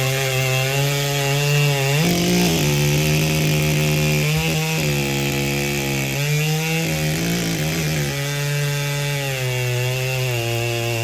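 Over-90cc racing chainsaw running flat out while cutting through a log in a timed race. A loud, steady engine note that wavers in pitch a few times as the chain loads up in the wood.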